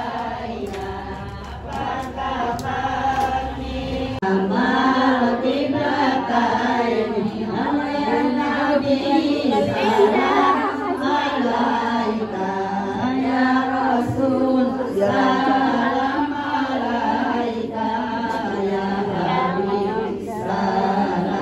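A group of women's voices chanting devotional verses together in unison, with sustained sung notes. A low rumble runs under the first four seconds or so.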